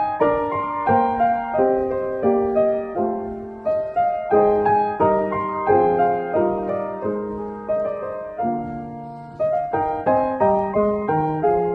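Piano playing a Christmas tune, with notes struck at an even pace and each one dying away.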